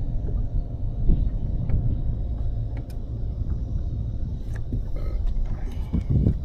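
Low, uneven rumble of a fishing boat's motor running, with a few light knocks near the end.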